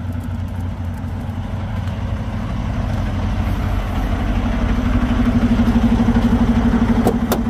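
Semi truck's diesel engine idling, a steady rhythmic throb that grows louder as the truck is approached. A short click near the end.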